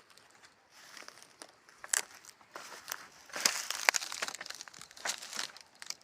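Irregular rustling and crackling with sharp clicks, like dry material being crumpled or crunched, loudest in the middle; no engine running.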